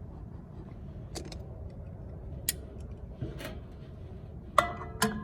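A few separate metallic clicks and taps of a hand tool working on the blower wheel's hub as its lock nut on the motor shaft is tightened, over a steady low hum.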